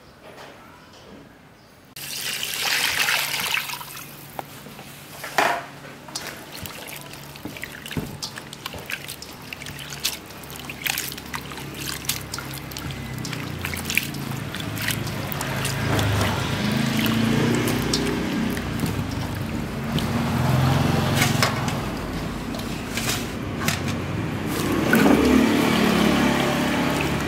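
Water sloshing and splashing as hands stir and rub larvae in a steel bowl of water, with many small sharp splashes. Background music comes in about two seconds in and continues under the washing.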